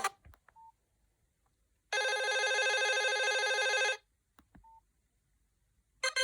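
Nokia 5130 XpressMusic mobile phone playing a preloaded ringtone: one electronic telephone-style ring, a steady buzzing tone that lasts about two seconds and stops abruptly. A short beep comes shortly before it and another shortly after it.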